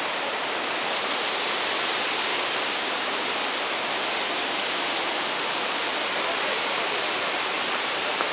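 Triberg waterfall's cascade of water rushing down the rocks: a loud, steady, even hiss of falling water that does not let up.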